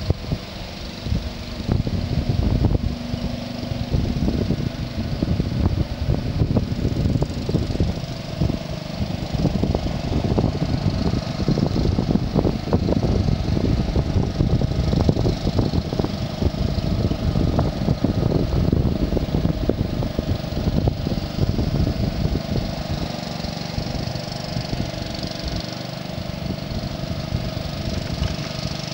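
Small engine running steadily, driving the homemade paddle wheel of a pontoon boat, heard under a rough low rumble.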